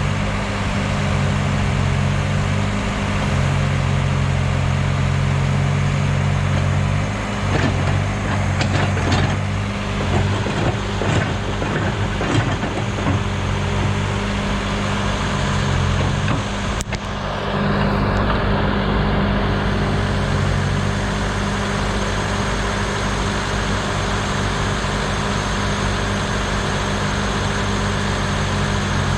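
Heavy diesel machinery engine running steadily. Irregular knocks and clanks come through for several seconds around the middle.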